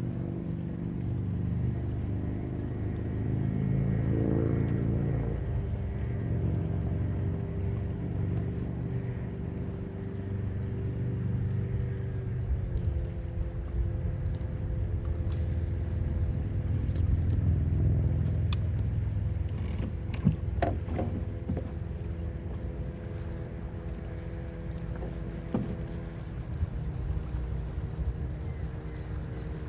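A boat motor running steadily under a low rumble of wind on the microphone. Its hum drops slightly in pitch about twelve seconds in, and a few sharp clicks and knocks come later on.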